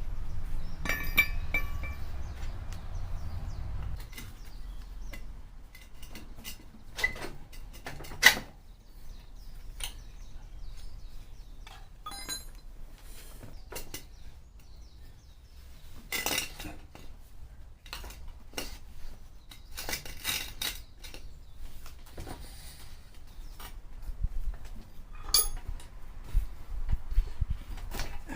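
Metal tools and parts clinking and clanking at irregular intervals, as in hand work on a motorcycle's front wheel. Some knocks ring briefly, and the loudest comes about eight seconds in.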